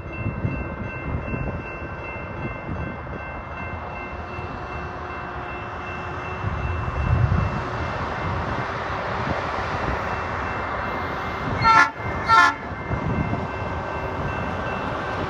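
Rail-converted diesel semi truck pulling freight cars away, with a steady low engine-and-wheel rumble that swells about seven seconds in. Near the end, the truck's horn gives two short blasts in quick succession.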